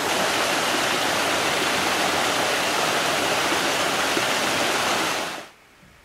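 Mountain stream rushing steadily over rocks, fading out about five seconds in.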